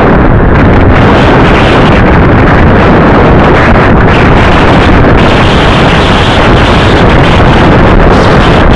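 Loud, steady wind buffeting on the microphone of a glasses-mounted camera as a mountain bike descends a dirt track at speed.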